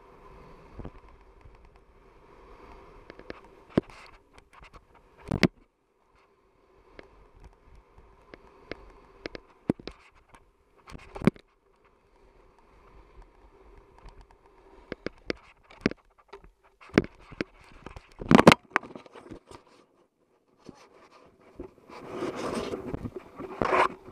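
Snowboard sliding over packed snow, heard through an action camera mounted on the board: a scraping hiss broken by sharp knocks and clicks. The loudest knock comes about 18 seconds in, and a louder rush of scraping snow follows near the end.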